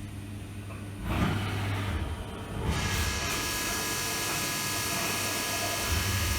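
CNC machining centre working through its program to tap 1/4-20 holes, its spindle and axis drives whining. Quieter for the first second, then a short burst about a second in, and from nearly three seconds in a steady hiss carrying several steady tones.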